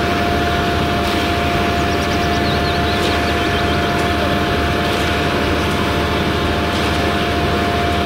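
A ready-mix concrete mixer truck running at a pour, its engine and turning drum making a loud, steady noise with a steady whine through it as concrete comes down the chute. Birds chirp faintly a couple of seconds in.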